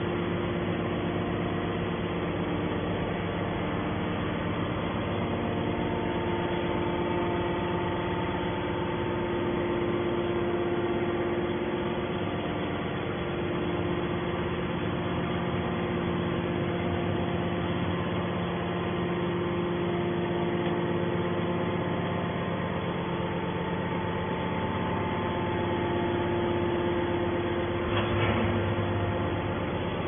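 Hydraulic scrap-metal baler's power unit running, a steady hum made of several held tones, with one brief knock near the end.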